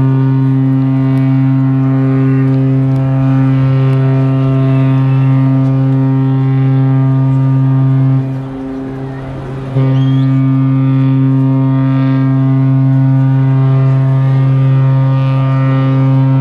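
Cruise ship Disney Magic's horn sounding two long, deep, steady blasts, the first about eight seconds and the second about seven, with a short break between them.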